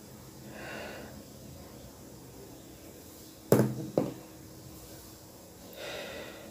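A person breathing audibly, with a soft intake near the start and another near the end, and two short, loud puffs of breath about half a second apart in the middle.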